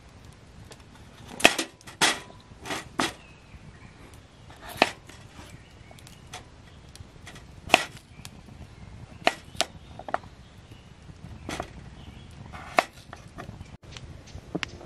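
A dozen or so sharp knocks and clicks at uneven intervals, roughly one a second, some louder than others.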